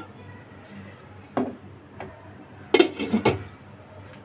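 A single knock about a second and a half in, then a short cluster of clinks and knocks about three seconds in as a glass lid is set onto a cooking pot to cover it for steaming.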